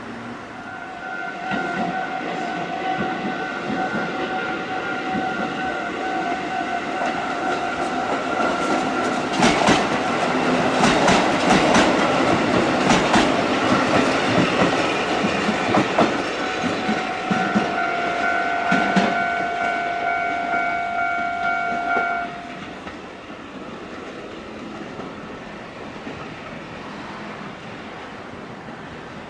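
Level-crossing warning bell ringing its steady electronic tone while a Kotoden electric train runs over the crossing. The train's wheels clack over the rail joints, loudest about halfway through, and the bell stops about 22 seconds in.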